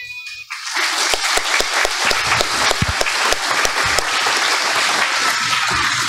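Audience applauding, starting about a second in and beginning to fade near the end.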